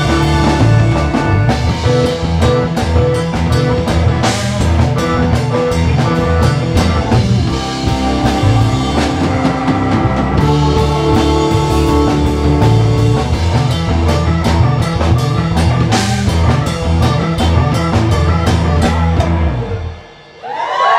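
Live band playing an instrumental funk-rock jam: drum kit, electric guitar and keyboard at full volume. The band stops together abruptly near the end.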